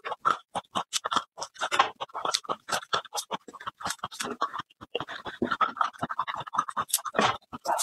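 Dry, papery garlic skins crackling and rustling as whole bulbs are handled and peeled by hand: a rapid, irregular run of crisp crackles.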